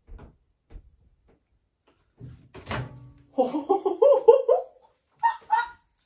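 A microwave oven door clacks open about halfway through, and a woman laughs in a quick string of loud pulses, then gives two short higher bursts of laughter near the end.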